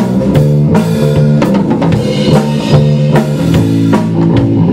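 Live rock band playing an instrumental groove: a drum kit keeping a steady beat under an electric bass line and electric guitar.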